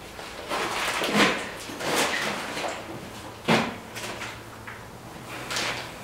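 Clear plastic bag crinkling and rustling in about four short bursts as a plucked chicken is handled and bagged.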